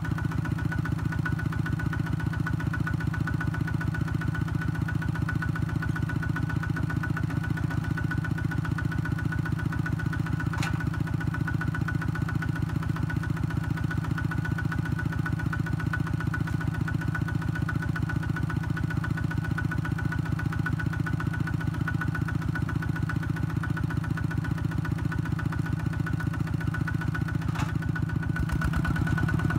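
Kubota ZT120 single-cylinder diesel engine of a two-wheel walking tractor running steadily with an even, rapid chugging. Two sharp clicks cut through it, one about a third of the way in and one near the end, and the engine note shifts slightly just before the end.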